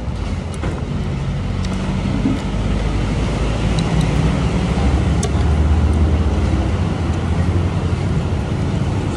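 Steady low rumble of passing road traffic, a vehicle engine swelling louder around the middle and easing off again. A few light clicks of a metal spoon against a duck egg's shell and a small dish.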